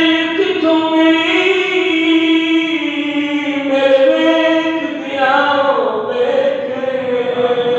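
A naat sung unaccompanied by a man's solo voice through a microphone and loudspeakers, in long held notes that step from one pitch to the next.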